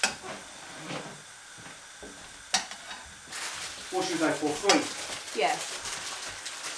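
Strips of beef sizzling as they brown in a hot pan over a gas flame, with sharp clacks of a spatula against the pan near the start and about two and a half seconds in. Louder, short pitched sounds come between about four and five and a half seconds in.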